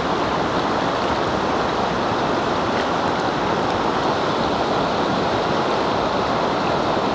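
Steady rush of a fast-flowing river, an even wash of water noise.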